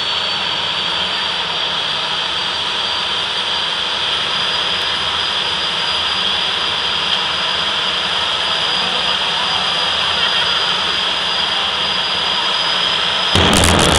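Jet dragster's turbine engine running at the start line: a steady loud roar with a high whine that creeps slowly upward. About 13 seconds in it suddenly gets louder and rougher, with a deep rumble and crackling as the engine is run up.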